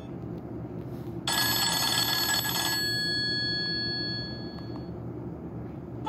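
A Nokia E70 ringtone playing from a Nokia 130 phone's small loudspeaker. About a second in comes a burst of several tones sounding together; the higher tones ring on and fade over the next few seconds. A steady low hum runs underneath.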